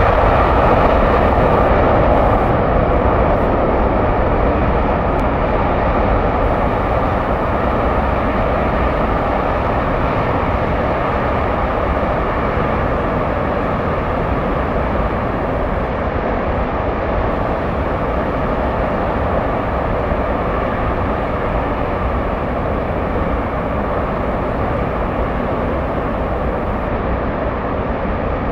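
F-1 rocket engine gas generator firing on a test stand, burning liquid oxygen and RP-1 kerosene: a loud, steady roar of rocket exhaust that eases slightly toward the end.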